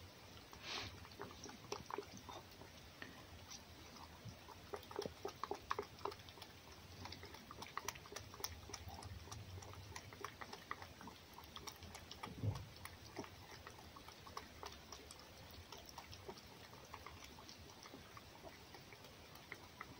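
Red fox eating egg from a plate: faint, irregular wet smacking and licking clicks, with one louder knock about midway.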